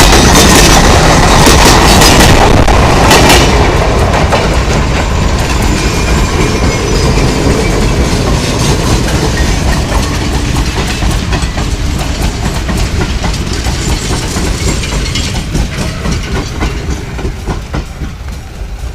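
Train passing close by on the track, its wheels clattering over the rails with many sharp clicks. It is loudest in the first few seconds, then slowly fades.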